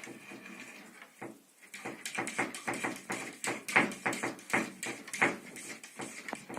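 A quick, irregular run of light taps and knocks that starts about two seconds in, is loudest in the middle and thins out near the end.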